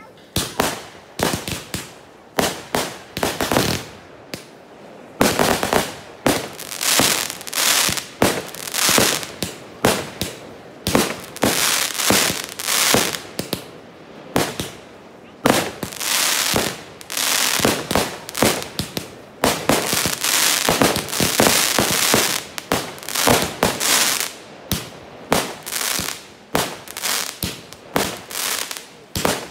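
Aerial fireworks going off in quick succession: sharp bangs and pops, several a second, with crackling between them, busiest in a few dense flurries.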